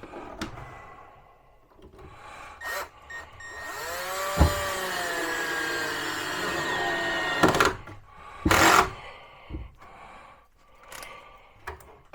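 Drill driver running for about four seconds with its torque set low, the motor pitch rising and then sagging. A short loud burst and a few knocks and clicks come before and after it.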